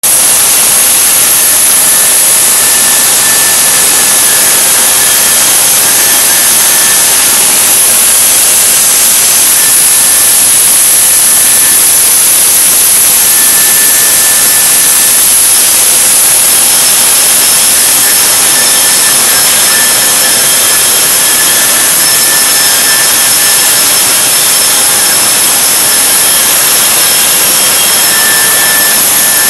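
UV coating and curing line for flooring panels running: a steady, loud, even machine noise with faint high whines that come and go.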